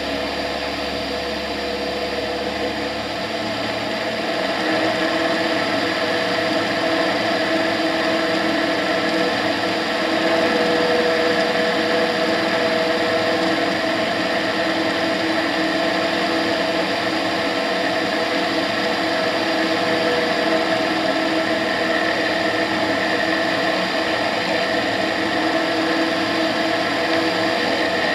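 Tetras ultralight aircraft's engine and propeller running steadily in cruise flight, with airflow rushing past; it grows a little louder about four seconds in.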